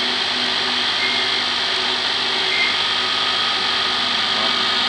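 Electric-motor-driven stainless-steel colloid mill, a chili and peanut butter grinding machine, running steadily: a constant hum under a high, even hiss.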